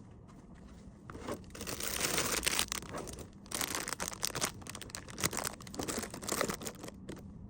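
Packaging crinkling and rustling in irregular bursts as items are handled and packed, starting about a second in and stopping near the end.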